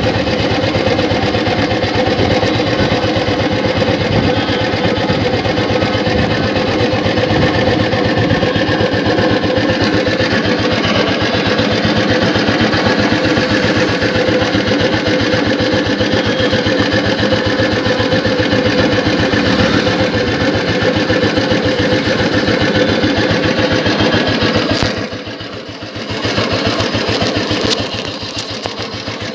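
1974 Royal Enfield Bullet 350's single-cylinder four-stroke engine running under way at low road speed, its exhaust beating in a steady fast rhythm. Near the end the engine note drops off for a moment and then picks up again.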